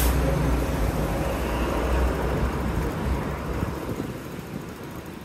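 A motor vehicle passing close by in city street traffic, its low rumble fading away after about three and a half seconds.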